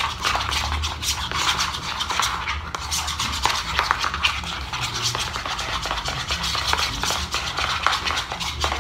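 Two spoons stirring and scraping a thick shaving-foam slime mixture in bowls: a rapid, continuous run of scrapes and clicks.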